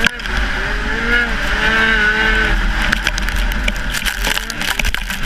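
Ski-Doo snowmobile engine at racing speed, its note rising and falling several times as the throttle is worked, over a steady low rumble and many short knocks.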